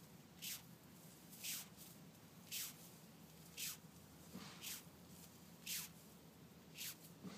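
Beetle making short, sneeze-like hisses, evenly about once a second, each trailing off slightly downward in pitch.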